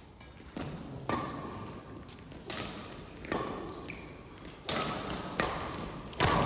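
Ball being struck and bouncing in a rally on a sports court: about seven sharp knocks at uneven intervals, some with a short ringing tail.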